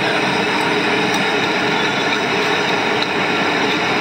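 Steady, even roar of a gas burner heating a large pot of tea.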